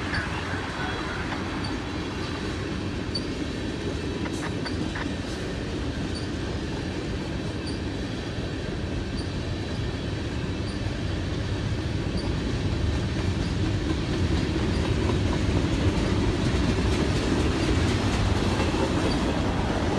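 Freight train of tank cars rolling past: a steady rumble of steel wheels on the rails, growing louder in the second half.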